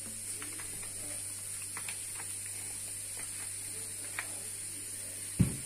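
Steady low electrical hum and high hiss of background noise, with a few faint ticks and a single low thump near the end.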